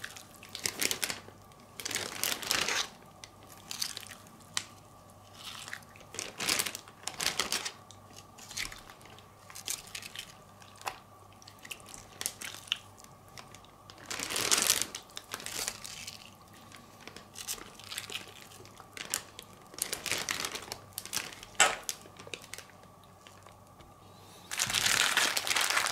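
Plastic freezer bag crinkling and rustling in irregular bursts as marinated steaks are put into it, with louder, continuous rustling near the end.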